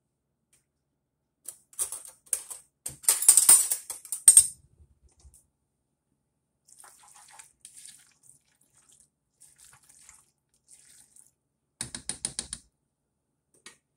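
Kitchen utensils clattering in a quick burst of sharp clicks and rattles, loudest about three to four seconds in, with faint scattered clinks after. Near the end, a spoon clicking and scraping in a saucepan as it stirs macaroni and cheese.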